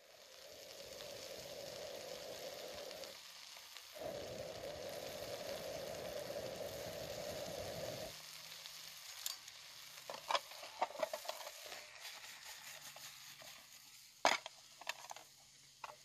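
Chicken of the woods mushroom pieces sizzling in a frying pan over a log stove's fire. About eight seconds in, the sizzle drops and a metal spoon clicks and scrapes in the pan as the pieces are stirred.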